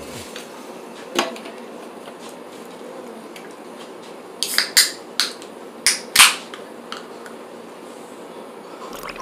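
Sharp clinks and knocks of a stemmed glass full of ice and an aluminium soda can being handled on a table: one click about a second in, then a quick run of five or six between about four and a half and six and a half seconds in, the loudest near the end of that run.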